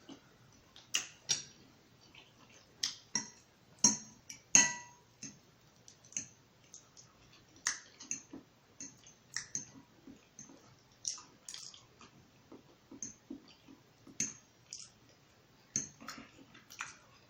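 Close-up eating sounds: irregular wet chewing and mouth smacks. About four seconds in, a utensil clinks with a brief ring against a dish twice.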